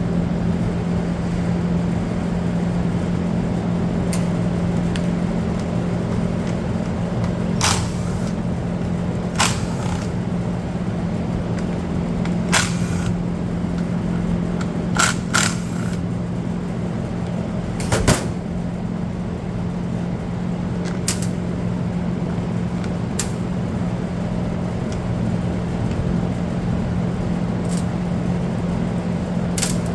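Screws being taken out of the plastic cover of a Stihl FS250R brush cutter: about a dozen sharp, separate clicks and knocks of tool, screws and plastic, spread irregularly, over a steady low background hum.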